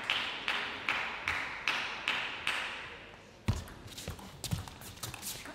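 A table tennis ball bounced over and over at an even pace, about two and a half times a second, each bounce ringing in the hall. About three and a half seconds in, a sharp hit starts a fast rally of bat-and-table clicks.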